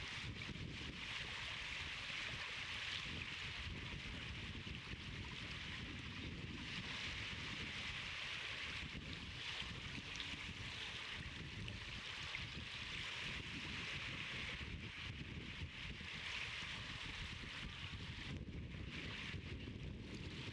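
Steady outdoor wind noise with a rushing hiss that swells and eases every few seconds over a low rumble.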